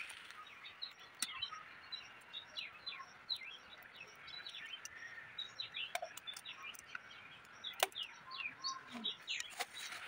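Small birds chirping: a running series of short, high, falling chirps. A few sharp clicks stand out over them, the loudest near the end.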